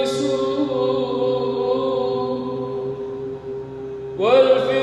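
A solo male voice chants a Byzantine hymn to the Theotokos in Arabic, holding a long melismatic note over a steady low drone. About four seconds in, the voice slides up into a new phrase.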